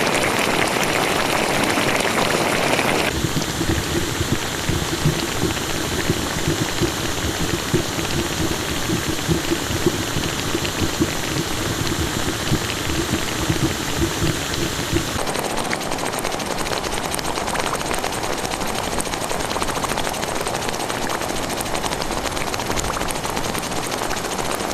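Volcanic hot springs at Furnas: boiling water and mud churning and bubbling with an irregular low rumble, mixed with hissing steam. The sound changes abruptly twice, about 3 seconds in and about 15 seconds in. Between those points the deep, uneven bubbling is strongest; at the start and end it is a steadier hiss.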